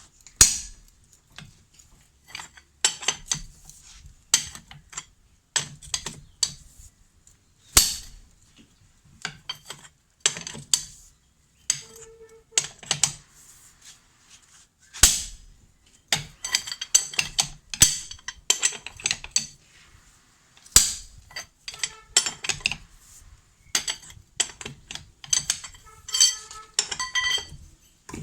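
Steel hand tools clanking and clinking against a car wheel's nuts: irregular sharp metallic knocks, some ringing, with a few quick runs of clinks, while the wheel nuts are loosened.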